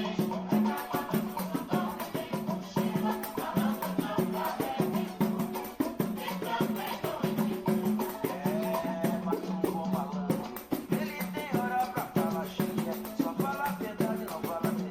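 Pagode samba music with a pandeiro's jingles and slaps keeping a quick, steady rhythm.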